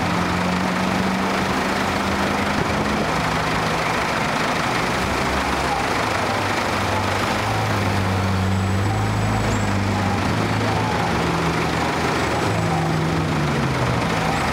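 Engines of classic cars running at low speed as they roll past one after another, the low engine note changing every few seconds as each car goes by.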